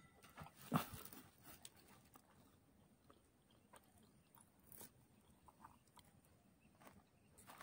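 Mostly near silence with faint, sparse eating sounds as grilled chicken breast is torn apart by hand, and one sharper click about a second in.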